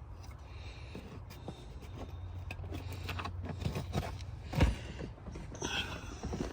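Small clicks, knocks and scrapes of hands and tools working on car-audio speaker wiring, over a steady low hum, with one louder thump about four and a half seconds in.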